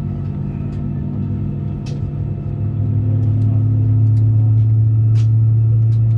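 Steady low drone inside the cabin of a taxiing Airbus A320-232, its IAE V2527 engines running at taxi power. It grows louder about three seconds in, with a few light clicks.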